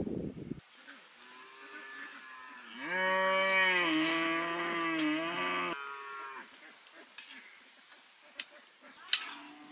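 A cow mooing: one long low call that swells from about a second in, is loudest from about three to six seconds, then fades. A single sharp click near the end.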